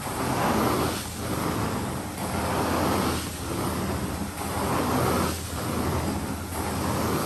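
Carpet cleaning equipment running with a steady low hum, and a whooshing swell that rises and falls about once a second as strokes are worked across the carpet.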